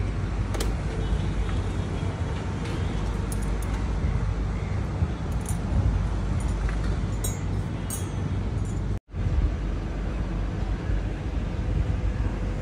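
Steady rumble of city street traffic heard from high above, with low wind rumble on the microphone. The sound cuts out for a split second about nine seconds in.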